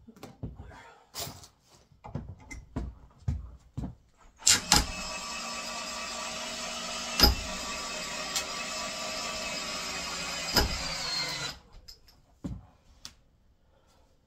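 Cordless drill running steadily under load for about seven seconds as it bores into a timber post, with a few sharp knocks along the way, then stops suddenly. Scattered knocks and handling come before it.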